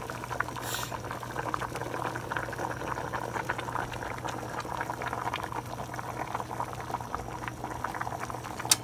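A pot of soup boiling hard on a gas burner: a dense, steady bubbling over a low hum, with a single sharp click near the end.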